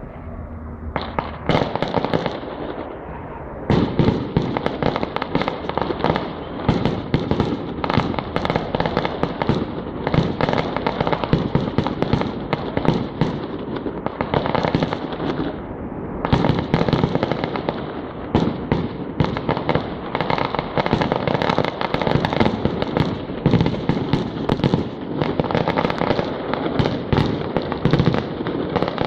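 Fireworks going off in a dense, continuous barrage of rapid bangs and crackling, starting about a second and a half in.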